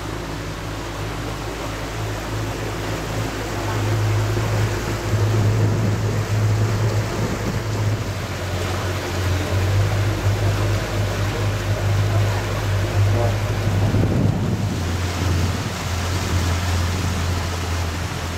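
Tour boat's motor running steadily with a low hum, with water rushing past the hull; it gets louder about four seconds in.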